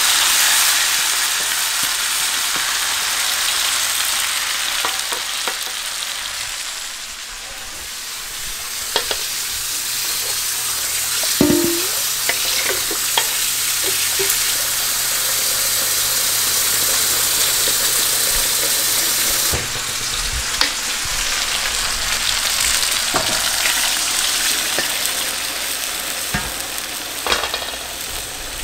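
Oxtails and caramelizing onions sizzling in a hot pot as they are stirred in with a spatula, with scattered clinks and scrapes of utensils on the pan and bowl. Midway, tap water runs into a steel mixing bowl.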